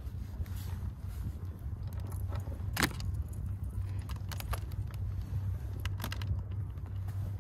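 A steady low drone with scattered sharp clicks and a small metallic jingle; the loudest click comes about three seconds in.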